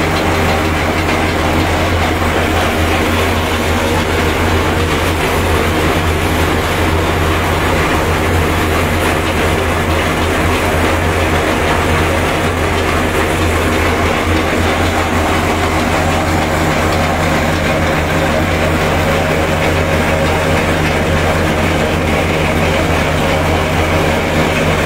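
Tractor engine running steadily, driving a groundnut decorticator (shelling machine), in a continuous loud mechanical drone.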